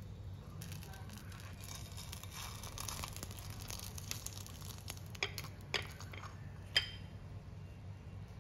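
A hot non-stick frying pan hissing as a pan-fried dumpling is slid out onto a ceramic plate, with three sharp clicks of the pan against the plate about five to seven seconds in.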